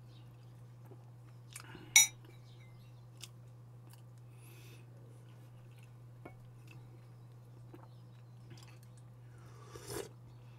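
Eating at a table: faint chewing and small clicks, with one sharp ringing clink of tableware about two seconds in and a short, noisier rustle near the end.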